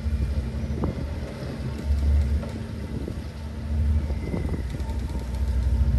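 Low, steady rumble and hum of a motor yacht's engines during docking, swelling louder about two seconds in, again at four seconds and near the end. Wind buffets the microphone.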